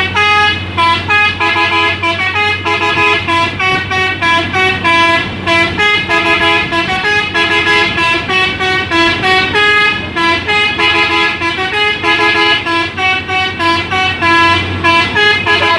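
Multi-tone telolet horn on a Hino dump truck playing a quick melody without pause, its notes changing every fraction of a second, over the truck's steady low engine hum.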